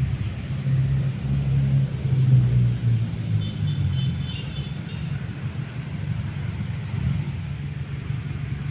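Low, steady rumble, heavier in the first half and easing off after about five seconds.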